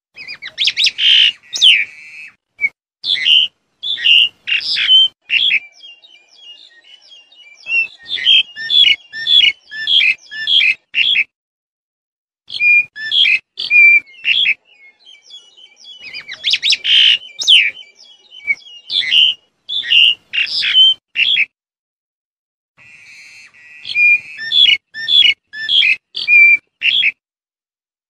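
Black-collared starling calling: loud bouts of rapid, high notes, each bout a few seconds long, five times over with short silent gaps between them.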